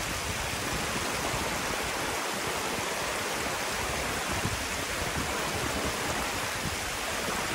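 Steady rush of flowing river water, a continuous even noise with no breaks.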